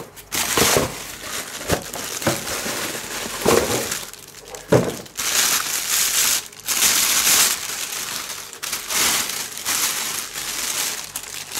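Clear plastic bag crinkling and rustling as it is handled, with cardboard box flaps being moved, in spells with brief pauses.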